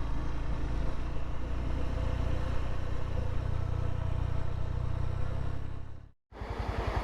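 Honda CB150 Verza's single-cylinder engine running steadily as the motorcycle is ridden, a low even rumble. The sound cuts out completely for a moment about six seconds in, then picks up again.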